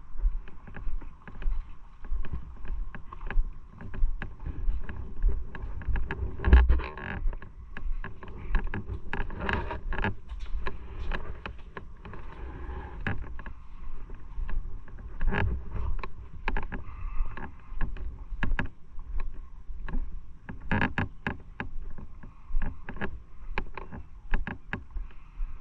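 Riding motorcycle heard from an onboard microphone: wind buffets the mic in irregular low gusts over a steady hum of engine and road.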